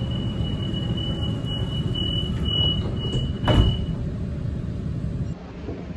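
Sydney Trains Waratah double-deck train's door-closing warning: a high-pitched tone sounds while the sliding doors close, and they shut with a thud about three and a half seconds in. A low rumble from the stopped train runs underneath.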